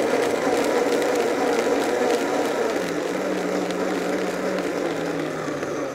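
Countertop blender motor running steadily, puréeing a thick sauce of rehydrated ancho chilies, chicken stock and cherry jam. A second, lower note joins the whine about halfway through.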